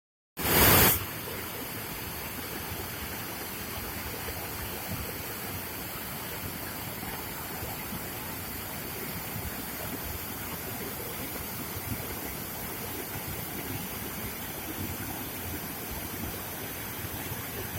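A waterfall rushing steadily. A brief loud noise, the loudest sound here, comes in the first second.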